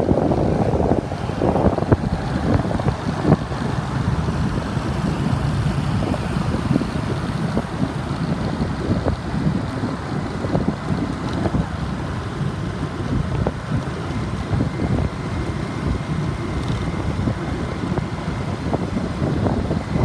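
Motorbike and scooter traffic running steadily, heard from a moving motorbike, with wind buffeting the microphone.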